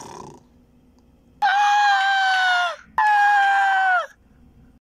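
Two long, high screams, the first just over a second long and the second about a second, each held steady and then dropping in pitch as it breaks off.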